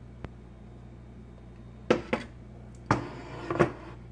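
Lid of a Cuisinart electric pressure cooker being unlocked and lifted off the pot: a faint tick, then a few sharp knocks and clatters about two seconds in and near the end.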